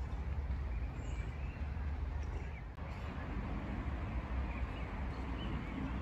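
Outdoor park ambience: a steady low rumble with a few faint, short bird chirps over it.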